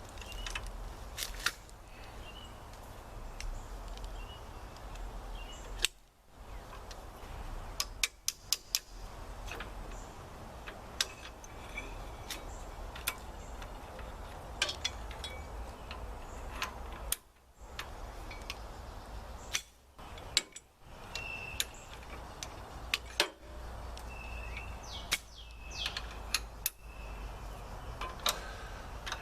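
Scattered sharp clicks and clinks of metal tractor hitch parts and tools being handled, with birds chirping faintly at times.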